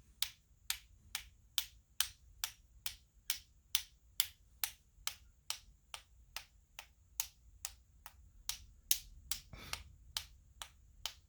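A paintbrush loaded with white gouache tapped sharply against the handle of another brush, again and again at a steady two or three taps a second, spattering paint as snowflakes.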